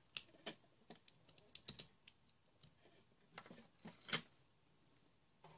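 Faint, scattered clicks and taps of the opened plastic housing of a solar LED searchlight being handled, the loudest a little after four seconds in.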